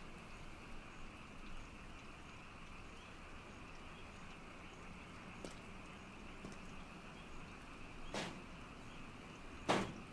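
Steady faint hiss of background ambience, broken near the end by two sudden sharp noises about a second and a half apart, the second the loudest: a door being grabbed and clanking.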